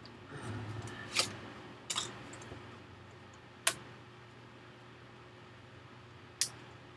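Four sharp clicks and knocks, a second or more apart, over a steady low hum, from hands and a prying tool working on the plastic case of a 2006 17-inch iMac.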